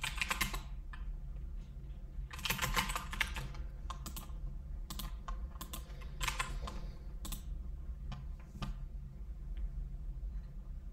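Computer keyboard typing in short bursts of rapid keystrokes, then a few single key presses with gaps between them.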